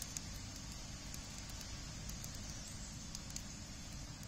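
Wood fire crackling in a steel fire ring, with scattered sharp pops at irregular intervals over a steady low background rumble.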